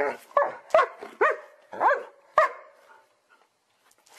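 A medium-to-large dog barks about six times in quick succession, then falls quiet for the last second and a half.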